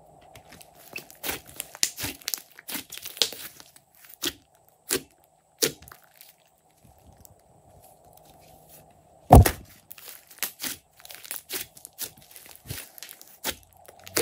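Thick glossy slime, with clay and makeup mixed in, stretched and pressed by hand, giving irregular sticky pops and crackles in clusters, with one louder pop about nine seconds in.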